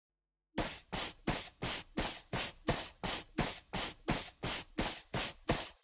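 A steady rhythm of short hissing strokes, about three a second, starting about half a second in, like a shaker or brushed percussion opening a music track.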